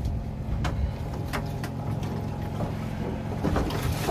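Steady low drone of a boat's engine, with a few sharp clicks and knocks scattered through it.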